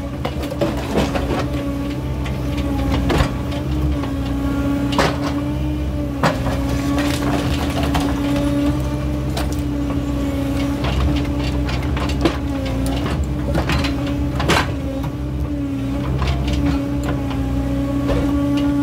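JCB digger's diesel engine running with a steady hum under load, while its bucket works a concrete-block wall. Sharp knocks and cracks come every few seconds as the bucket strikes the wall and broken pieces fall.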